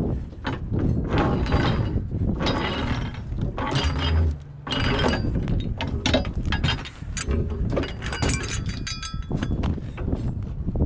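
Trolleybus current-collector pole being swung on its rope: irregular rattling and clanking of the pole and its roof mounting, with wind buffeting the microphone and a brief metallic ringing about eight seconds in.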